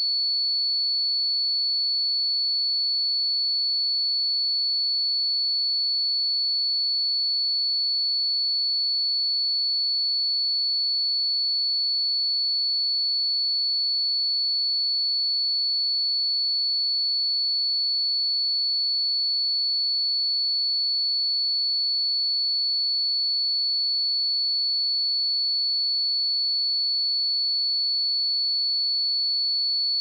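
A steady, high-pitched pure sine-wave test tone at 4432 Hz, one unchanging pitch at constant level.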